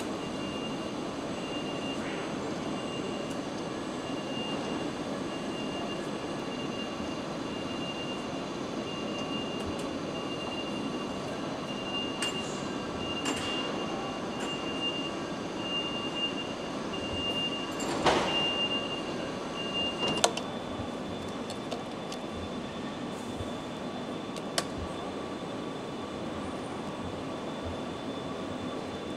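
Steady hum and rumble of an electric-drive assembly line, with a faint high whine that steps up in pitch about two-thirds of the way through. A few sharp clicks and clanks of metal parts and tools stand out, the loudest two near the middle.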